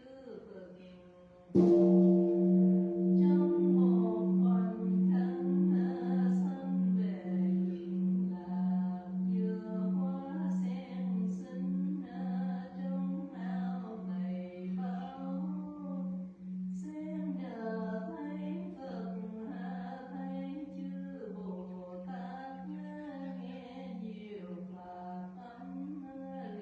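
A large Buddhist temple bell (đại hồng chung) struck once about a second and a half in, its low hum pulsing evenly and slowly fading, with higher ringing tones dying away sooner. A voice chants over it throughout.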